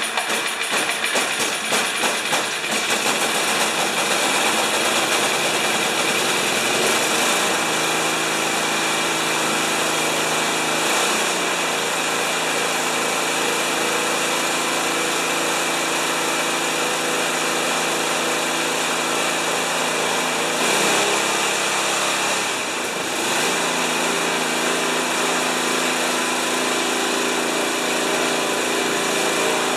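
Craftsman snowblower's Tecumseh single-cylinder engine running just after a one-pull start on full choke, uneven for the first couple of seconds, then settling into a steady run. Its speed shifts briefly a little past two-thirds of the way through.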